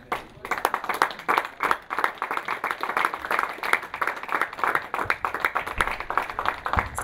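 Audience applauding, a steady run of many hands clapping.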